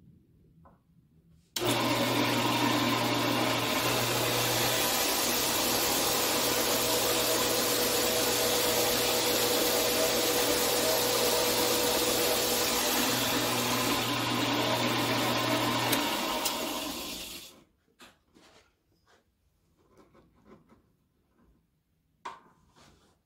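A 4x6 horizontal metal-cutting bandsaw starts up suddenly and runs steadily, its blade cutting through an aluminum blank with a loud hiss over the motor's hum. After about fifteen seconds it shuts off and runs down, followed by a few light clicks and a single knock.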